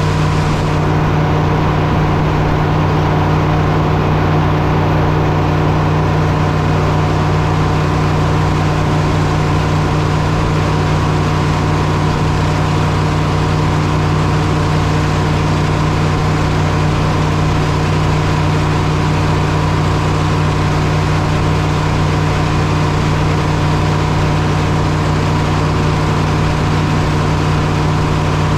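Engine running at a steady speed, with an even pitch that does not rise or fall.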